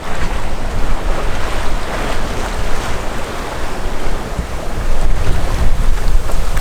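Wind buffeting the microphone over the rush of sea water around a sailing yacht under way, with a heavy low rumble that rises and falls in gusts.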